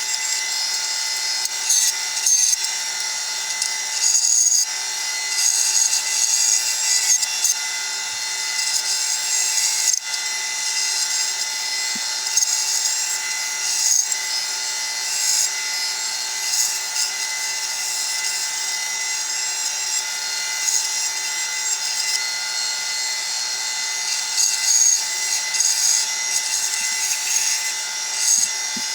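Bandsaw cutting wood: a steady machine hum under the blade's high hiss, which swells and eases as the wood is fed through.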